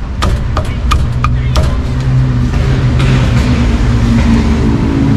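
A cleaver chops meat in quick sharp strokes, about three a second, for the first second and a half. Then a motor vehicle's engine and traffic noise take over.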